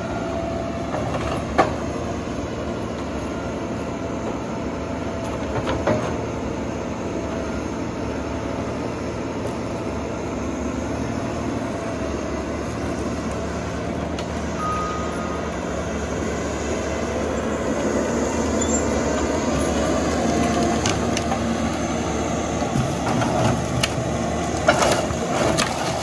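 John Deere 1270G forestry harvester's diesel engine running steadily under hydraulic load as the harvester head works a pine trunk, with sharp cracks of wood and branches about a second and a half in, around six seconds in, and several close together near the end.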